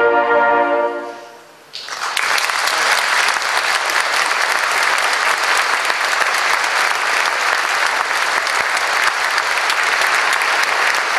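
The final held chord of a hunting-horn ensemble fades away in the hall about a second in. Then the audience starts applauding, with loud, dense, steady clapping.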